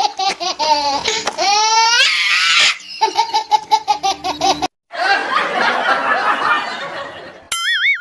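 Laughter sound effects: high-pitched, rapid pulsed laughing with a rising squeal about a second and a half in, a sudden cut to silence a little past halfway, then a fuller, noisier laughter. A wobbling whistle-like sound effect comes in near the end.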